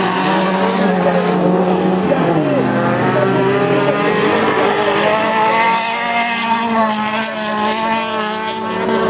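Several autocross cars' engines running hard on a dirt track, their notes overlapping and rising and falling as the drivers accelerate and lift through a bend. One engine's pitch drops sharply about two seconds in.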